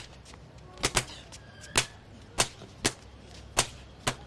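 A beating: a run of sharp smacks of kicks and blows landing on a man's body, about eight in four seconds at an uneven pace.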